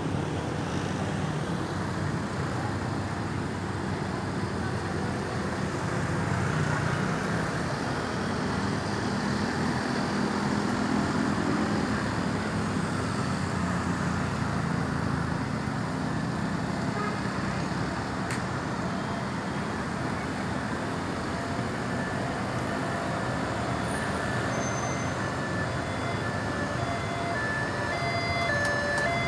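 Steady road traffic noise with a heavy vehicle's engine running close by. Near the end an ambulance's electronic siren starts, its tones jumping in steps between pitches.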